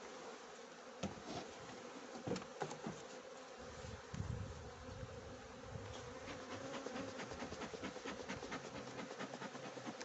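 Honey bees buzzing around an open hive, a steady hum. A few light knocks in the first three seconds and a fast run of faint clicks in the second half.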